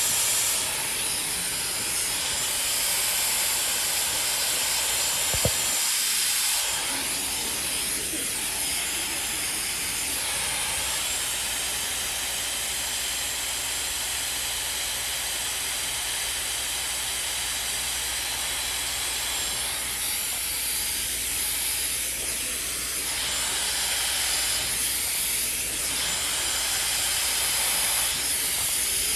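Dyson Supersonic hair dryer blowing through a flat concentrator nozzle, a steady rush of air that swells and eases in places as the hair is dried over a round brush.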